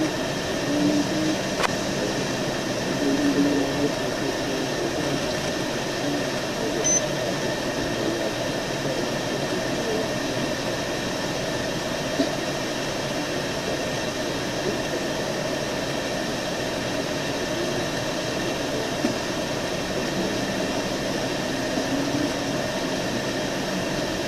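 Steady background hiss and hum, like an air conditioner or fan, with a faint click about two seconds in.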